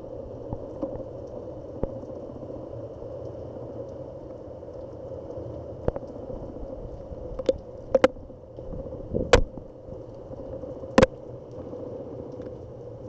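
Heavy rain falling steadily over a constant hum, with a few sharp clicks scattered through it as drops strike the soaked camera.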